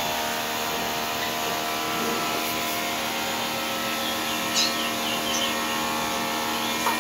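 Steady mechanical hum with a hiss, unchanging throughout, and a few faint, short, high chirps from birds about four and a half to five and a half seconds in.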